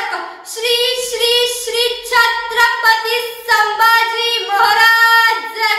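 A girl singing alone, holding long steady notes one after another.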